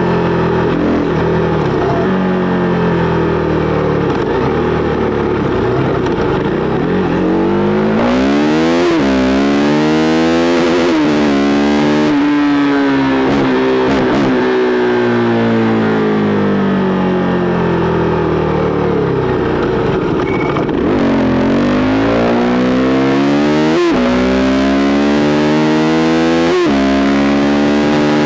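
KTM RC390's single-cylinder engine through an SC Project-replica aftermarket exhaust, ridden hard: the pitch climbs under acceleration and drops sharply at each upshift, twice about a third of the way in and twice more near the end, with a long easing-off of the revs in between.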